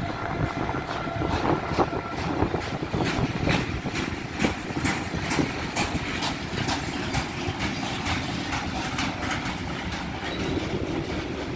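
Intermodal freight train of pocket wagons carrying truck trailers rolling past, its wheels clicking over rail joints about twice a second. It is heading toward a red signal where it must soon stop. A steady high tone sounds over the first two seconds.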